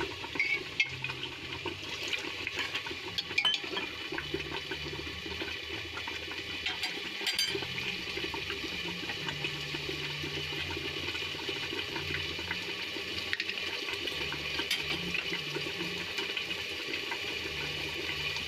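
Pea and masala gravy simmering and bubbling in an aluminium pressure cooker, a steady watery sizzle. A few sharp knocks of the stirring spoon against the pot in the first seconds.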